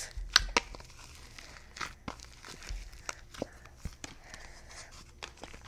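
Bead-filled floam-style slime being stretched and squished by hand, giving scattered soft clicks and crackles.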